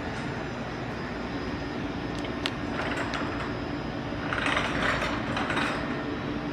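Steady hum of commercial kitchen machinery running, fans and refrigeration compressors, with a single steady tone. A hissing rush swells briefly about two thirds of the way in.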